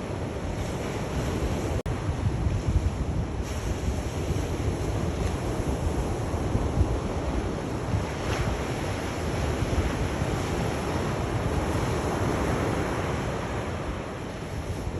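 Sea waves surging and washing in continuously, swelling and easing over several seconds, with a low wind rumble on the microphone. The sound cuts out for an instant about two seconds in.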